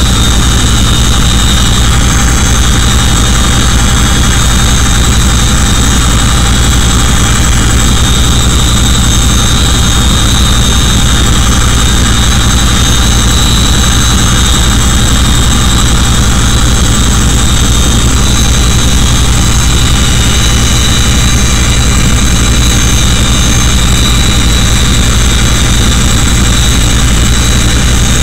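Boeing CH-47 Chinook tandem-rotor helicopter in flight, heard from inside the cabin: its twin turboshaft engines and rotor drive make a steady, very loud din, "loud as hell", with a low rumble and high, even whines above it.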